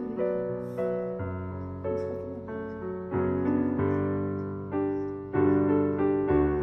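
Background piano music: a gentle melody of notes struck one after another, each fading after it is played.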